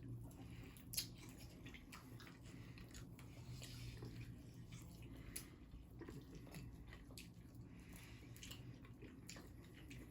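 Faint chewing and biting of sauced chicken wings close to the microphone, irregular small wet clicks and smacks, with one sharper click about a second in.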